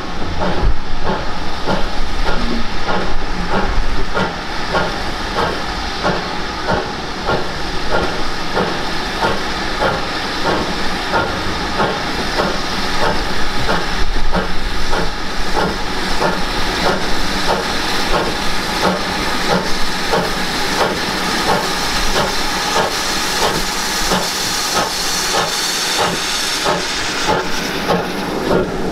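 Steam locomotive, the GWR 9400-class pannier tank 9466, working steam past at close range: a steady, even beat of exhaust chuffs over the hiss of steam.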